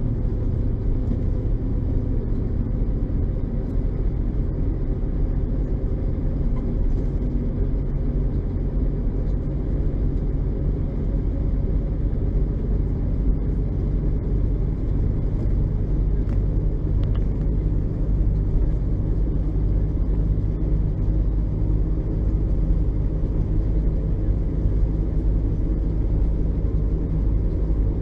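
LAZ-699R bus's ZIL-375 V8 petrol engine running steadily at an even speed.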